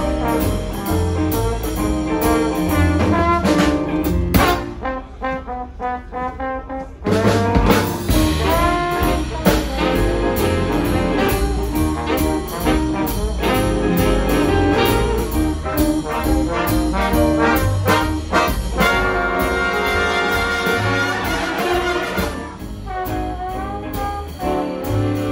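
Live big band playing jazz: saxophone, trombone and trumpet sections over drums and bass. About four and a half seconds in the bass and drums drop away for a softer passage of a couple of seconds, then the full band comes back in.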